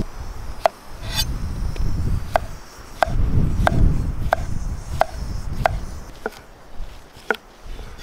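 Knife slicing a cucumber on a thick wooden stump cutting board: a sharp tap each time the blade goes through and hits the wood. There are about ten cuts at a steady pace, a little more than one a second.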